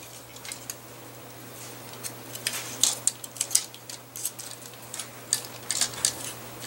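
Transformers Alternators Ricochet toy figure being turned and folded by hand: irregular sharp clicks and snaps of its plastic parts and joints, few at first and coming more often after about two and a half seconds.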